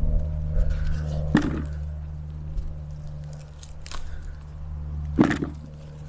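Potato plants being pulled up by hand and tubers picked out of dry soil, with soil scraping and rustling; two sharp knocks, about a second and a half in and near the end, the second louder, over a steady low hum.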